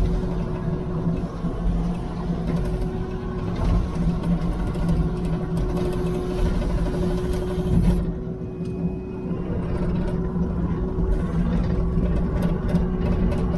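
Engine of a piece of heavy equipment running steadily under a constant load, a low, even hum.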